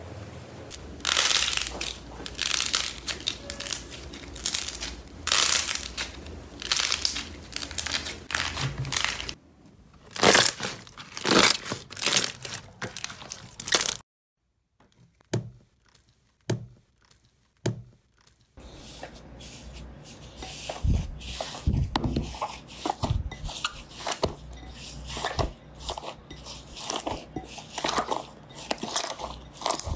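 Hands squeezing, pressing and kneading slime, giving a run of short crackles and pops, broken by a few seconds of near silence about halfway through.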